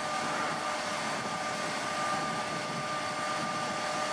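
Steady engine-like running noise with a thin, steady high tone through it, from a large cargo ship driving in toward the beach to be run aground.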